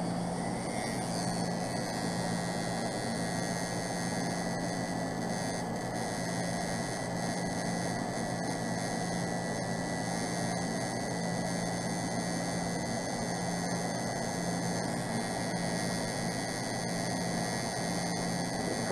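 Tattoo machine running with a steady buzz as the needle works ink into skin.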